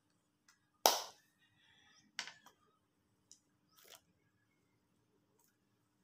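Four short sharp clicks, the loudest about a second in, another about two seconds in, and two fainter ones later.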